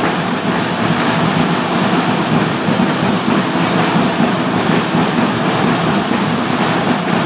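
Steady, even background noise of a large indoor shooting hall, with no shots heard.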